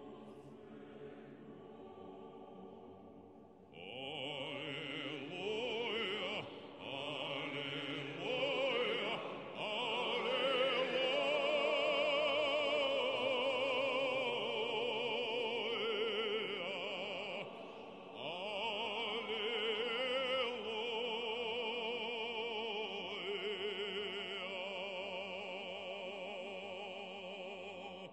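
Orthodox church chant sung in a classical style, long held notes with heavy vibrato. Quiet at first, the singing comes in strongly about four seconds in and fades away near the end.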